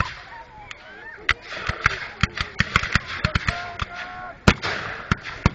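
Scattered black-powder musket fire on a reenactment battlefield: a dozen or more sharp shots cracking at irregular intervals, the loudest about four and a half seconds in, with distant shouting voices between them.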